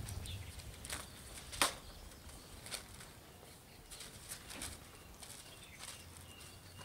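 Newspaper pages rustling and crackling as they are handled and pulled apart, in scattered short crackles, the sharpest about a second and a half in.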